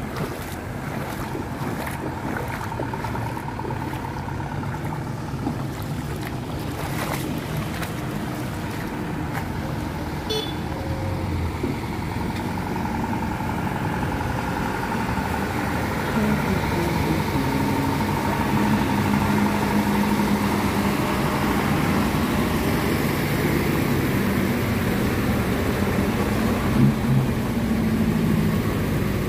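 Motor vehicles running along a flooded road, their engines growing louder about halfway through as traffic comes closer.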